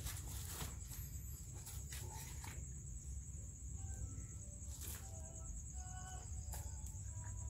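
Cats scuffling and pawing at the stiff bristles of a straw broom, a few short rustles and taps scattered through, over a steady high-pitched insect trill.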